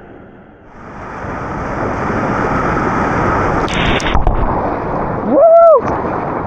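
A loud, steady rushing noise builds up about a second in, with a brief harsher burst around the middle. Near the end comes a short, high, pitched call that rises and falls.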